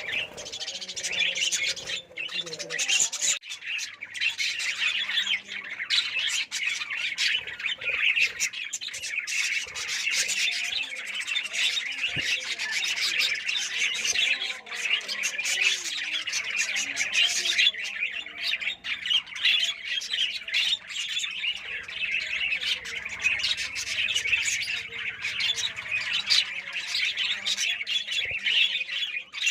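A cage full of lovebirds chattering and squawking all at once, a dense, continuous, high-pitched twittering.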